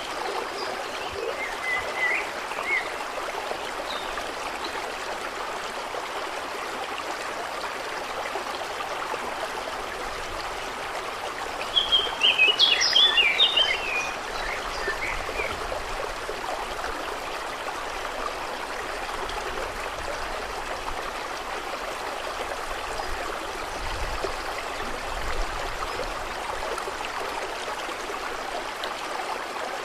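Steady trickle of running water, with birds singing over it: a few faint chirps about two seconds in and a loud burst of chirping song about twelve seconds in, lasting a couple of seconds.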